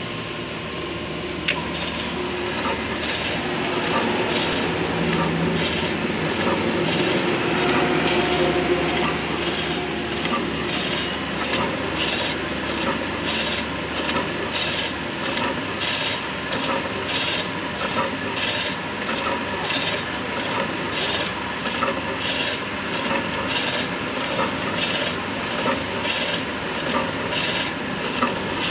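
Automatic meat slicer running, slicing pork belly with a regular rasping stroke about twice a second over the steady sound of the machine. The strokes begin about two seconds in.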